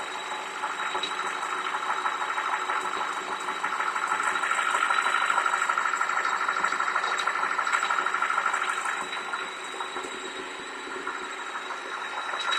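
TSI petrol engine running with a steady high-pitched whistle over fast, even ticking. The owner treats the whistle as an extraneous noise and a problem with the engine. The sound dips a little in level near the end.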